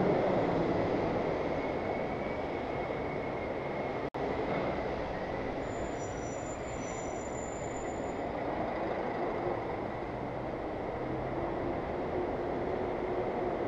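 Road traffic noise at a junction, picked up by a cyclist's action camera: a steady rumble of engines and tyres with a faint high steady whine. The sound cuts out for a split second about four seconds in.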